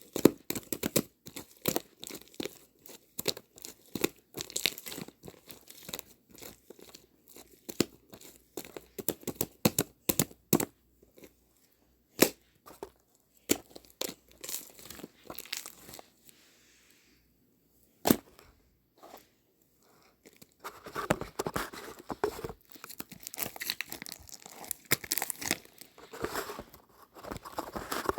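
Close-up handling noise: crinkling and rustling with many sharp clicks and taps. It pauses briefly past the middle, then comes back as denser rustling.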